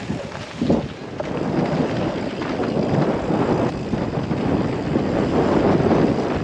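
Wind buffeting the microphone of a mountain bike rider's camera, with bike tyres rumbling over a dirt singletrack; a single knock comes near the start, then the rough rushing noise builds and stays loud.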